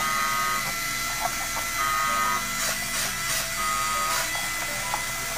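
Wall-climbing remote-control toy car on a ceiling, its small electric motors running with a steady buzz. A higher whine starts and stops several times.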